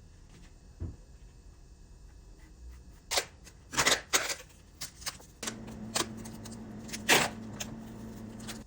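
A run of sharp knocks and clicks, irregular and some louder than others. A steady low hum comes in about halfway through and runs under them.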